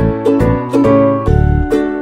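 Background music: a light tune of plucked-string notes over a pulsing bass line.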